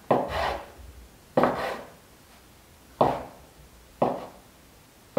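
Kitchen knife chopping through a log of dough and knocking onto a wooden cutting board: four sharp chops about a second or so apart.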